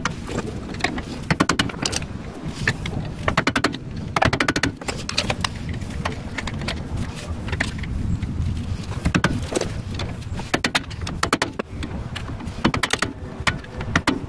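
Irregular metal-on-metal taps of a hammer on a screwdriver, driving out a brake caliper's retaining pin, often in quick runs of several strikes.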